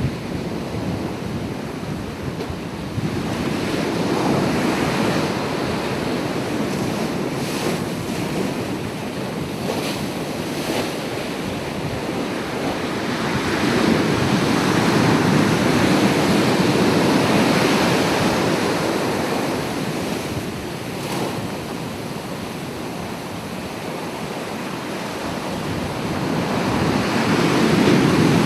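Ocean surf: waves breaking and washing ashore, rising and falling in slow surges about every ten to twelve seconds.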